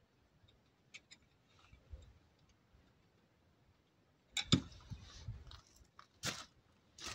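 Hand work under a Land Rover Defender's bonnet: a few faint clicks, then about halfway through a louder clatter of parts and tools being handled, followed by two sharp knocks. The noise comes from taking the oil condenser off the engine, with the engine not running.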